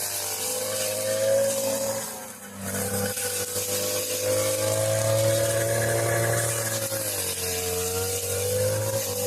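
Two-stroke push lawn mower engine running hard while cutting through thick brush, its pitch sagging and recovering under the load. It drops off briefly about two and a half seconds in, and dips again in pitch near seven seconds.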